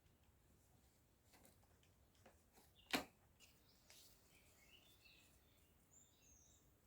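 Near silence, broken by one sharp tap about three seconds in and a few fainter ticks, with faint high chirps in the second half.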